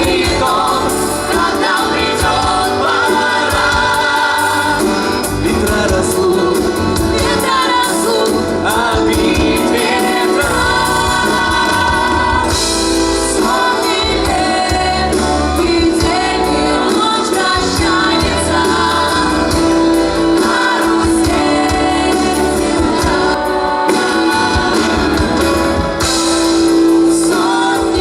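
Live band playing a song with several singers singing together.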